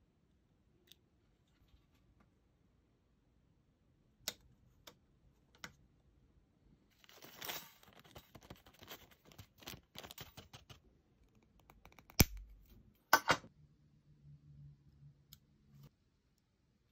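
Small model-kit parts handled by hand: a few light clicks, then a clear plastic bag of thin metal wire spokes crinkling for several seconds. Two sharp knocks follow, the loudest sounds, with a short low hum after them.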